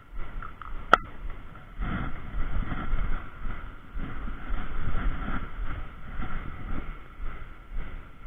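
Wind buffeting the microphone in uneven gusts, heavier from about two seconds in, with a single sharp click about a second in.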